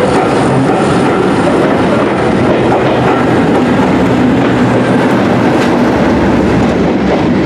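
Heritage British Rail diesel locomotive hauling a train, its engine running steadily under power and the wheels rumbling and clacking over the rails.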